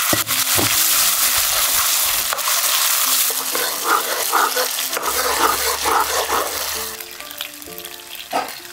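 Meat slices sizzling hard in hot oil in a nonstick pan as a metal ladle stir-fries them. The sizzle dies down about seven seconds in as the meat is ladled out.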